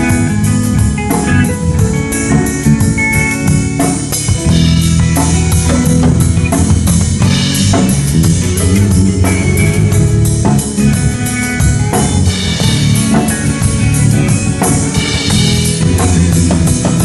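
Band music with a drum kit keeping a steady beat, with guitar and a low bass line.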